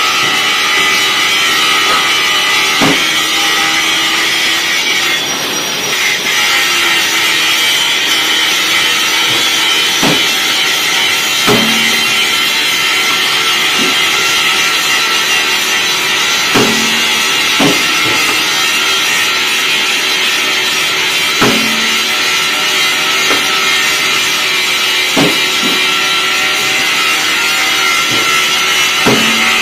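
Workshop machinery running steadily with a loud hiss and a constant hum. About a dozen metal clanks come every few seconds, some ringing briefly, as steel wheel-rim parts are set and clamped on the machine.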